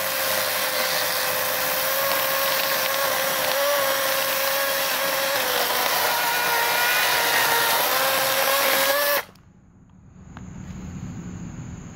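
Greenworks 16-inch 40-volt GMax brushless cordless chainsaw running at a steady speed with an even electric whine. It stops abruptly about nine seconds in.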